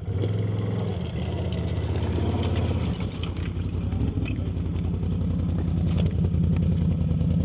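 ATV engine running at low speed with a steady low rumble, a little louder in the second half.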